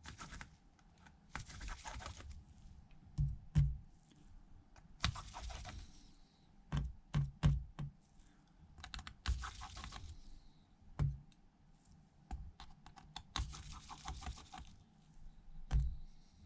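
Irregular small clicks and taps of a precision screwdriver and tweezers on tiny screws as the screws are taken out of a metal plate inside an iPhone 11 Pro Max and set down, with a few short scraping stretches.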